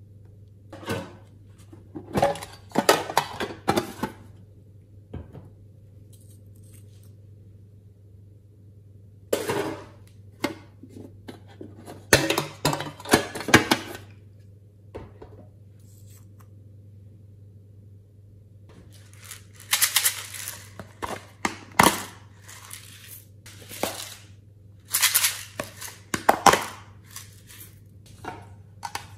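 Small glass vials of sprinkles and glitter being shaken and tapped, their contents rattling and the glass clinking, in three bursts of quick clicks over a faint low hum.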